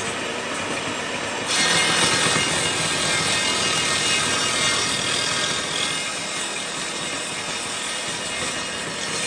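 Table saw running, its blade cutting through a plywood workpiece pushed on a sled, louder and higher-pitched from about a second and a half in until about six seconds, then running on without cutting.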